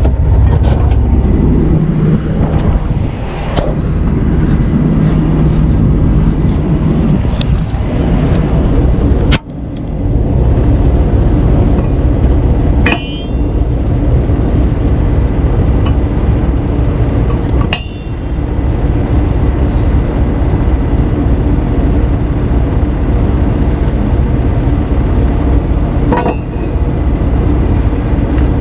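Heavy truck's diesel engine idling steadily, with a few sharp metallic clanks ringing out over it, about four spread through.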